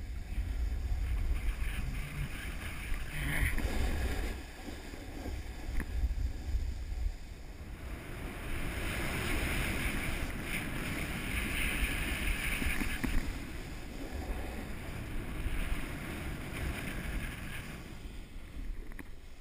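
Snowboard sliding and carving down through powder snow, a rushing hiss that swells through the middle, with wind buffeting the action camera's microphone as a low rumble, strongest in the first several seconds.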